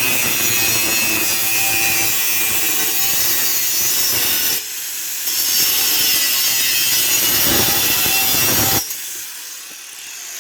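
Power tool with a zip-cut cut-off wheel slicing through saw-blade steel, a loud steady grinding hiss. The cut breaks off briefly about halfway through, resumes, and stops shortly before the end.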